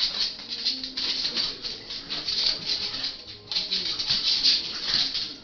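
Pug scrabbling at a tile floor, a fast dry rattling with brief pauses.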